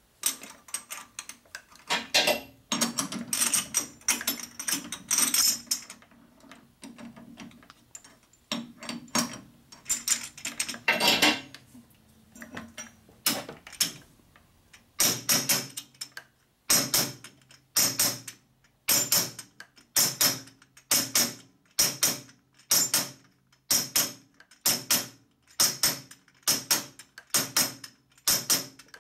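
Smooth-faced hammer striking the end of a chrome steel Harley pushrod cover tube against a backer held in a lathe chuck, knocking the chewed-up sealing edge back flat. Irregular metal clinks and clatter come first, then a steady run of sharp, ringing blows about one a second that speeds up slightly toward the end.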